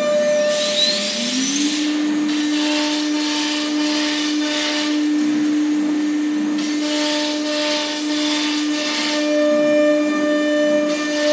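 ATC CNC router running: the spindle's whine rises in pitch about a second in and then holds a steady pitch, over the machine's steady drive tone and patches of hissing noise.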